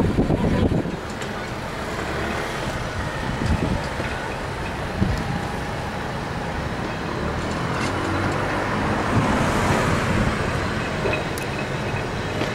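Open-top Blackpool Boat tram approaching and rolling past on its rails, a steady running rumble that grows louder over the last few seconds. It opens with about a second of louder running noise from on board a tram.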